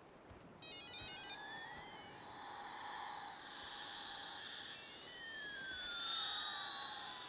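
High-pitched electronic tones over a steady hiss: a quick run of stepped beeps about half a second in, then several whining pitches gliding up and down and crossing each other, twice, like a siren.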